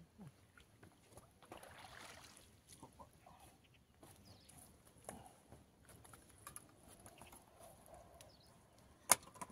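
A landing net with a caught carp is lifted out of the water, with water running off it for about a second around two seconds in. Faint scattered knocks and shuffles follow as the net is carried and set down, then a single sharp click near the end.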